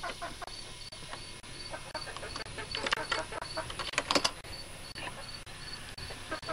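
Farmyard poultry calling in short, irregular squawks and clucks, with a louder cluster about three to four seconds in, over a faint high chirp that repeats about three times a second.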